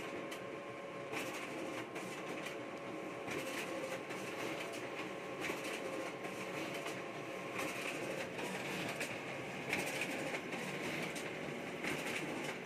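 Canon imageRUNNER Advance 6255 copier printing a sample copy set. It gives a steady mechanical whirr with repeated clacks and swishes as the sheets feed through.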